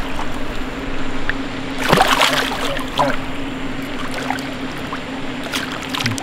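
Water splashing at the pond's edge as a small blue catfish is handled and lifted out, a few splashes with the largest about two seconds in, over a steady low hum.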